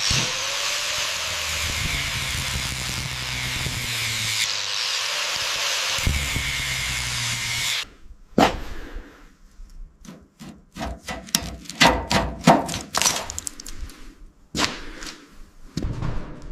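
A power tool running steadily with a loud hiss, cutting off suddenly about eight seconds in, followed by a string of sharp metallic knocks and clanks.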